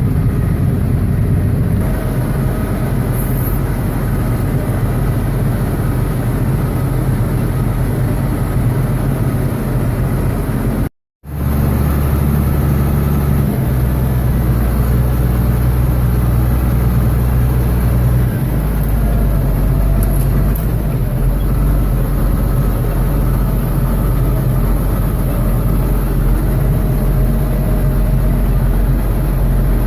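A tractor and an engine-driven New Holland small square baler running steadily while baling hay, a continuous low engine hum. The sound drops out for a moment about eleven seconds in, then carries on at a slightly different pitch.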